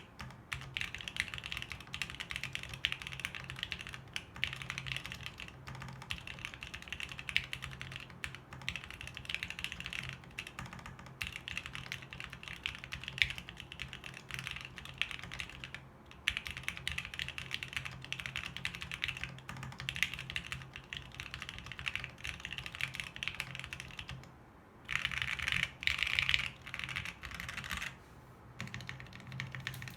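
Custom Bear 65 ergonomic mechanical keyboard, with a polycarbonate case and plate, lubed Seal linear switches and Geekark keycaps, being typed on steadily. A brief lull, then a denser, louder flurry of keystrokes comes about two-thirds of the way through.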